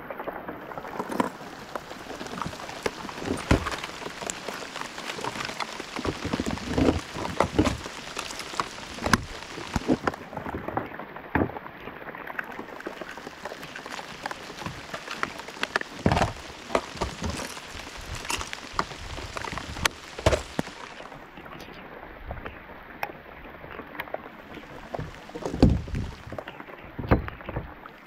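Rain pattering steadily on the lake surface and the plastic kayak, with irregular knocks and clatter of plastic lure boxes being handled in the kayak's cockpit.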